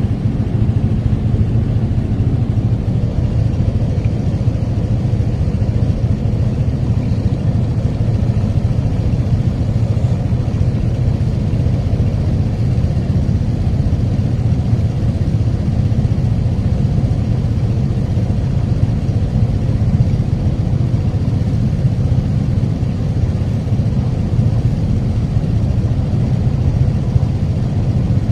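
Steady low engine rumble that stays even throughout, with no knocks or impacts.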